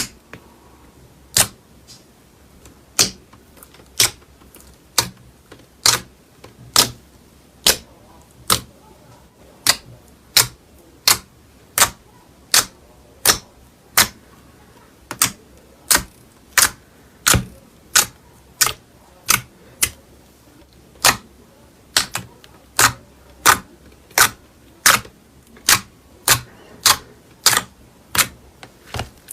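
A long series of sharp, loud clicks, about one every second at first and quickening to about two a second near the end.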